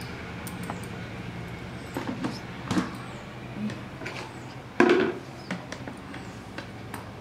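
Pink plastic lid being set and pressed onto a plastic storage container: scattered light clicks and knocks, with one louder knock about five seconds in, over a steady low hum.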